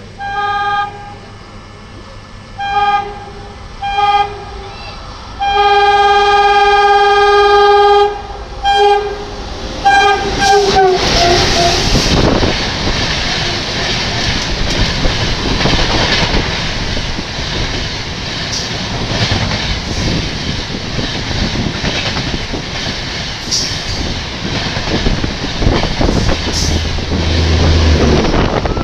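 WDM-3A diesel locomotive horn giving several short blasts and one long one, its pitch dropping as the locomotive passes. Then the LHB coaches of a Humsafar express go by at speed with a steady rush and the clatter of wheels over the rails.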